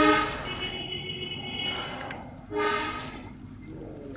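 A horn sounding in steady held notes: a long blast that cuts off just after the start, a higher held tone, and a second short blast about two and a half seconds in.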